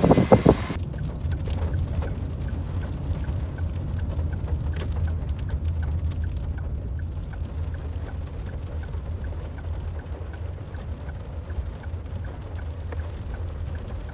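Inside a car in the rain: a steady low engine hum, raindrops tapping on the windscreen, and a regular ticking about twice a second. A few loud knocks come right at the start.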